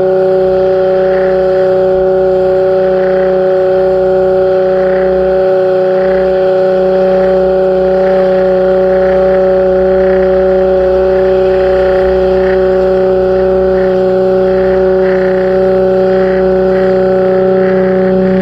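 Pressure washer running steadily with a constant machine drone.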